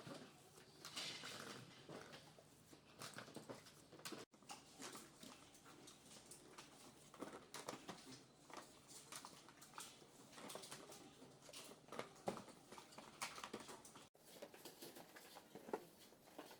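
Faint, irregular light taps and clicks, with two sudden drop-outs where the sound cuts off for an instant.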